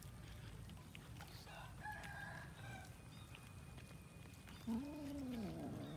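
Rooster crowing: a fainter call about two seconds in, then a louder one near the end that rises and falls away. Faint clicks of cats chewing on chicken run underneath.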